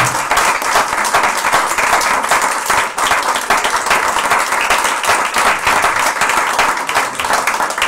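A congregation applauding, many hands clapping steadily and densely.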